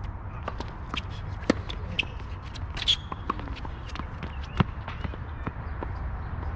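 Tennis point on a hard court: three sharp racket-on-ball hits about a second and a half apart, with lighter ball bounces and footsteps on the court between them, over a steady low rumble.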